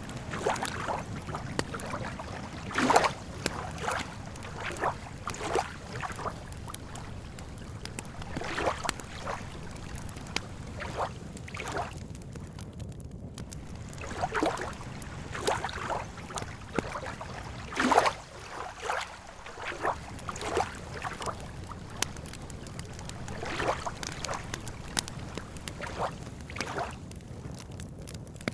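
Campfire crackling, with irregular sharp pops over a steady low rush that sounds like lake water lapping at the shore. Two of the pops stand out as louder, about three seconds in and past the middle.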